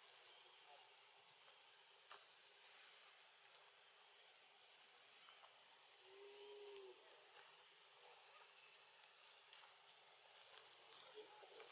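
Quiet outdoor ambience: a faint, high bird call, one short dipping note, repeated about once a second over a soft background hiss. A brief low tone sounds once around halfway.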